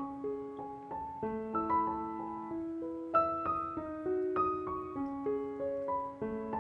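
Background piano music: a gentle melody of single struck notes over sustained lower notes.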